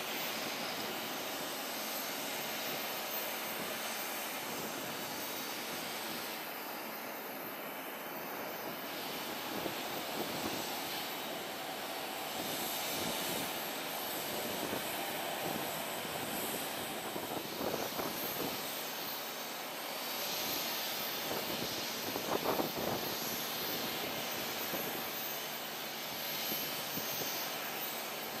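Boeing 737-800 airliner's jet engines during its landing: a steady rushing noise with a couple of brief louder swells in the second half.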